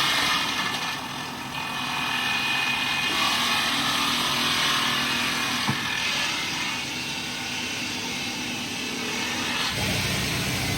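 Heavy machinery running steadily, a continuous mechanical noise with one short click about halfway through.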